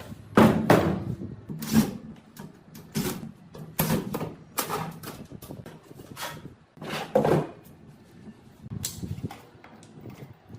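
Hard objects being handled and set down: irregular knocks and clatter, loudest in the first second and again around seven seconds in.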